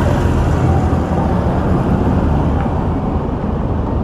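A minivan driving past close by, its engine and tyre noise easing off after about a second as it moves away, over steady road noise.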